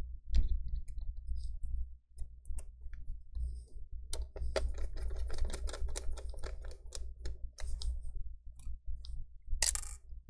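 Scattered small clicks and taps of fingers and a screwdriver on the plastic and metal parts of an open laptop's chassis. They come thick and fast through the middle, with a sharper click shortly before the end.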